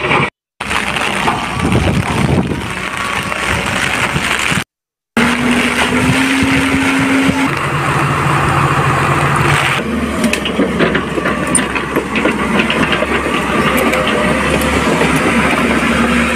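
Diesel engines of excavators and dump trucks running under load, a steady hum over a dense noisy rumble. The hum shifts pitch a few times, and the sound cuts out abruptly twice where clips are joined, about half a second in and about five seconds in.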